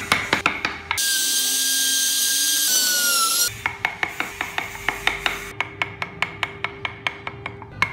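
A carving chisel being struck into wood, sharp regular taps about three or four a second. Between about one and three and a half seconds in, a burst of steady high-pitched hiss with a thin whine from a power tool cuts in and stops suddenly.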